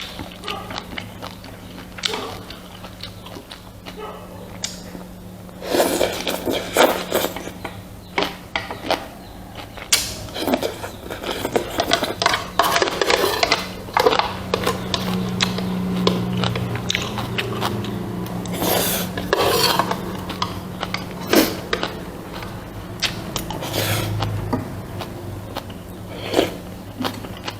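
Close-up eating sounds of a person eating rice and pork soup: chewing and biting, with frequent sharp clicks and scrapes that come and go, over a steady low hum.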